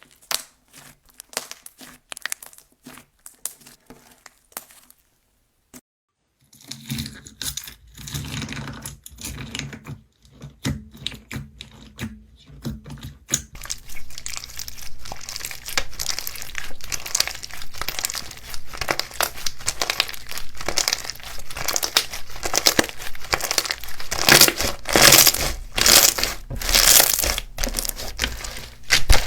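Slime being squeezed and kneaded by hand close to the microphone: scattered sticky clicks at first, then after a short pause a dense run of crackling and popping that grows louder toward the end.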